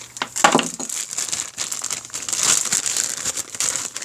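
Plastic bags of exhaust studs and bolts being handled, crinkling and rustling irregularly with small clicks.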